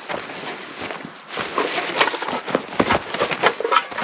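Close rustling and sharp crackles of a plastic trash bag being handled and footsteps through dry brush and litter, growing busier about a second in.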